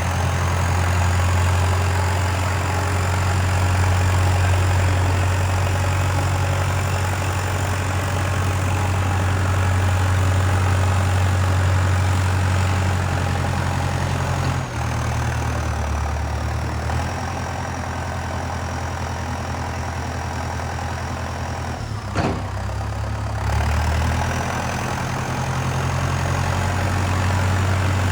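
Valtra 815 backhoe loader's diesel engine running, with a faint high whine above it. The engine note drops about halfway through, there is a single sharp knock a few seconds later, and the engine picks up again near the end.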